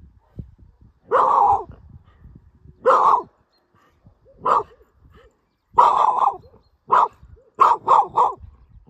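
A Schapendoes barking about eight times: single loud barks a second or two apart, then three barks in quick succession near the end.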